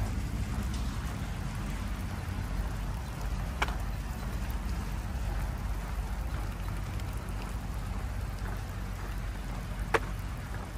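Steady rolling hiss of tyres on rough fresh asphalt with wind rumbling on the microphone of a moving vehicle, broken by two sharp clicks, one a little over a third of the way in and one near the end.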